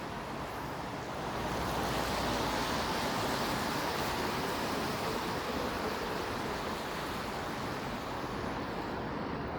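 Steady city street noise: the hiss of traffic on a wet road, swelling slightly about a second and a half in.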